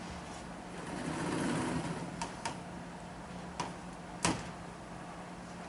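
Chalk knocking on a blackboard while writing: a few sharp taps, the loudest about four seconds in, over a steady low room hum.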